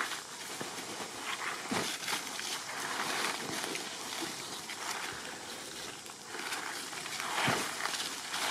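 Footsteps crunching and rustling through dry fallen leaf litter, with irregular crackles and a few louder steps.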